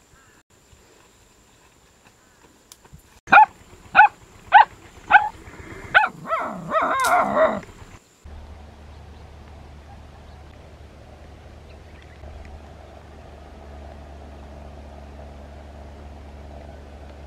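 A dog barking five times in a row, then giving a longer wavering yelp. After a sudden cut about halfway through, a steady low hum and hiss.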